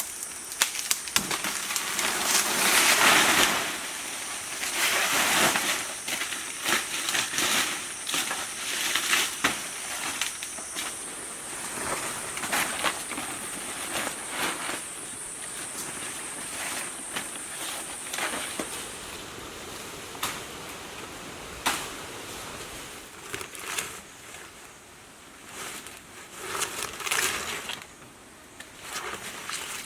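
Undergrowth being cleared by hand: leaves rustling, vegetation crunching and sticks snapping, with scattered sharp knocks. A steady high insect drone underneath stops about two-thirds of the way through.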